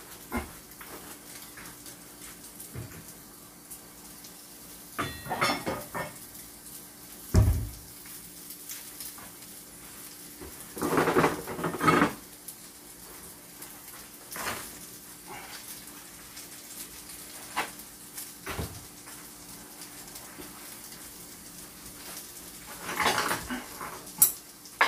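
Scattered clinks and clatter of dishes, a frying pan and utensils being handled, with a dull thump about seven and a half seconds in, over a faint steady hum.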